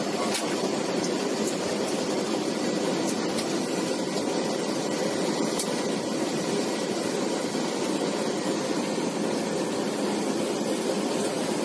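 Steady rush of airflow and engine noise inside a Boeing 737-500 flight deck on short final approach.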